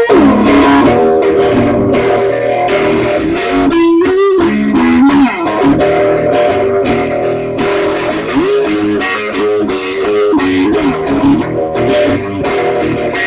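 Background music: an electric guitar track with bass and bending lead notes.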